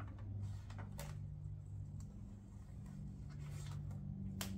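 Paper backing being peeled off a vinyl decal: a few short, quiet crinkles and rustles, about half a second, one second, three and a half and four and a half seconds in, over a low steady hum.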